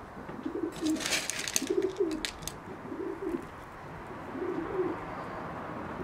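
A pigeon cooing repeatedly: four short, low coos spaced about a second apart. A few sharp clicks come in between, about one to two seconds in, from small fish-gravel stones being scattered by hand.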